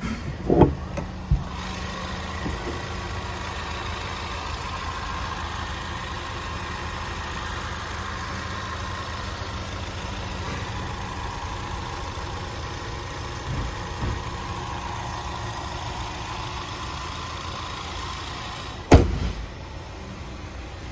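2018 Ford Mustang EcoBoost's 2.3-litre turbocharged four-cylinder idling steadily. There are a few light knocks at the start, and a loud thump near the end as the hood is shut.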